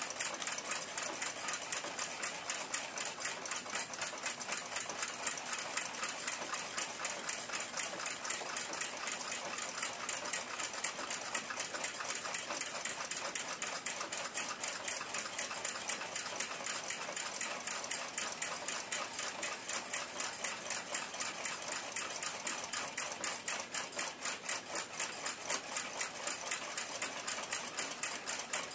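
Steady, rapid, even ticking of a running mechanical timepiece, several ticks a second.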